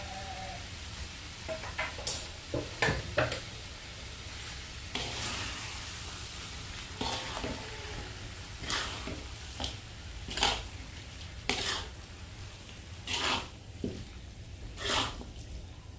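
A pan of eel mangut being stirred as it cooks: a utensil scrapes and knocks against the pan about a dozen times at uneven intervals, over a steady sizzle.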